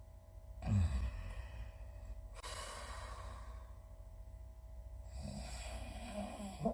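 A sleeping person snoring: a short, loud, low snore that falls in pitch on an in-breath about a second in, then a long breathy exhale, then another rasping in-breath near the end. A steady low hum runs underneath.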